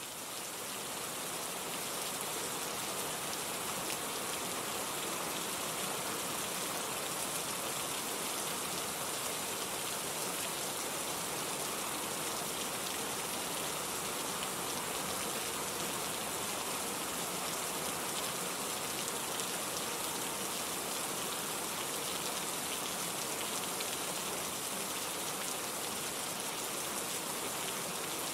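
Steady rain from a recorded rain-sound background track: an even, unbroken hiss of falling rain that swells up over the first second or two and then holds level.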